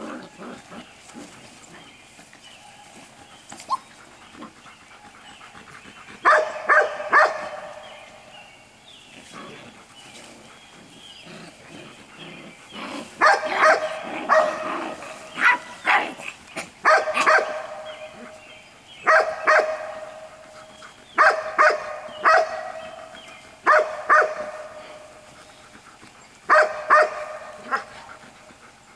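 Six-week-old golden retriever puppies barking. After a quieter start, a short cluster of barks comes about six seconds in. From about thirteen seconds on, runs of two or three barks repeat every couple of seconds.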